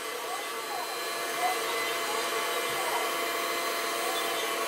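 Electric hot-air gun blowing steadily while it is left running to cool down: an even whirring hiss with several fixed whine tones over it.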